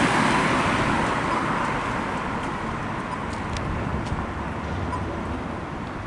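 Street traffic: a vehicle passing by, loudest at the start and slowly fading away, with a few faint ticks.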